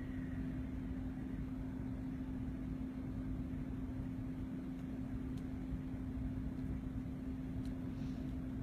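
Steady hum of a small electric fan or motor, a constant low tone over a low rumbling whir.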